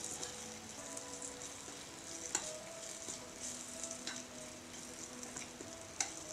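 Vegetables sizzling in oil in a tiny stainless-steel pan while a small metal spoon stirs them. There is a steady frying hiss, with two sharp clinks of the spoon against the pan, one about two seconds in and one near the end.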